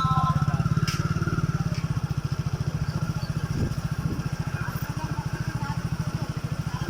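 A small vehicle engine running steadily while on the move, with a fast, even pulse.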